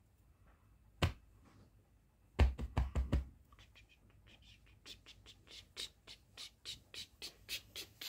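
Fingers tapping on a cloth pillow: one sharp tap about a second in, a cluster of heavier thumps around two to three seconds in, then a steady run of quick light taps, about three a second.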